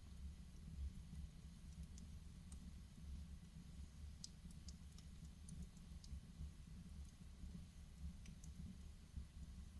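Wood fire in a fireplace crackling softly: scattered small, sharp pops, several of them about four to six seconds in, over a low steady rumble.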